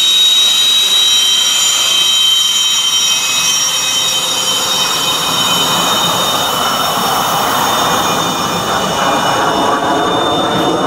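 Su-27's twin AL-31F turbofan engines at taxi power: a steady high whine of several tones over a rushing exhaust noise. The rushing grows louder in the second half as the jet turns its tail toward the listener.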